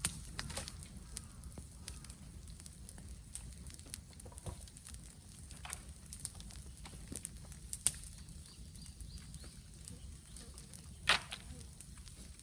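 Bamboo bonfire crackling, with scattered sharp clicks and two louder pops, about eight and eleven seconds in, over a steady low rumble.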